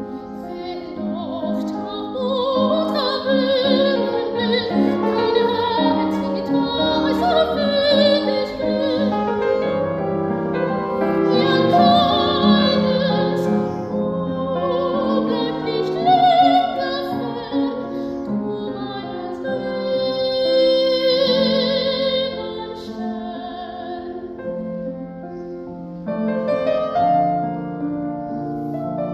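Soprano singing classical art song with vibrato over piano accompaniment. The voice stops a few seconds before the end and the piano plays on alone.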